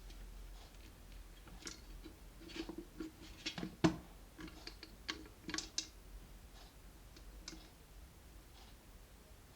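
Scattered light clicks and knocks of hands handling electric kettle parts during reassembly, busiest in the middle, with one sharper knock about four seconds in.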